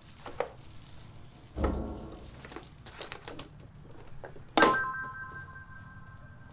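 A wooden box being handled: a dull thump, a few small clicks, then a sharp knock followed by a steady ringing tone held for about three seconds.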